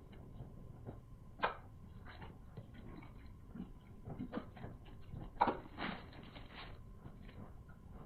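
Close-up eating sounds: chewing and mouth noises with scattered small clicks, and two louder brief sounds about a second and a half in and about five and a half seconds in.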